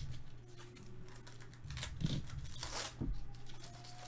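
Foil wrapper of a Topps Chrome baseball card pack being torn open and crinkled, a run of sharp rips and crackles loudest about two to three seconds in.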